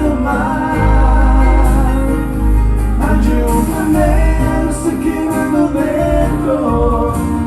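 A band playing a pop ballad with a heavy bass line, in a stretch between sung lines.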